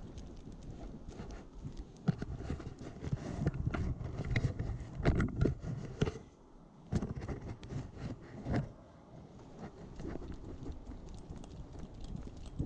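Uneven knocking and rubbing from a GoPro strapped to the back of a running beagle–blue heeler mix, jolting with each stride as its paws strike asphalt, over a low rumble of wind and motion. It eases off briefly a little past the middle, then picks up again.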